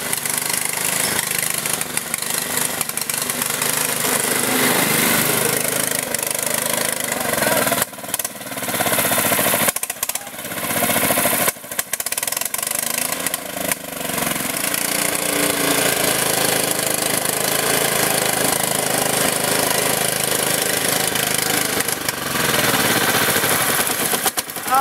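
Riding lawn mower's small single-cylinder engine running hard as the mower ploughs through deep mud and water, its pitch rising and falling as it revs and bogs under load, with a few sudden brief drops about a third of the way through.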